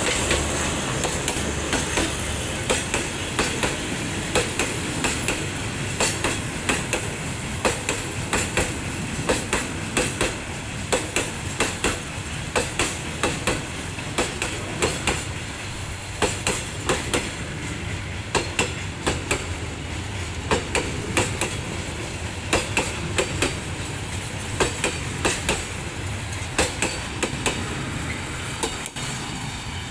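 Freight train's wheels clicking over the rail joints in repeated groups of sharp knocks, over the steady rumble of a D10H diesel locomotive running, heard from inside the locomotive's cab.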